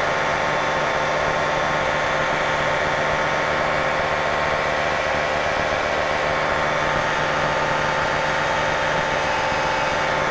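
Light experimental airplane's piston engine and propeller droning steadily in flight, heard from inside the cockpit, a constant note with no change in pitch or level.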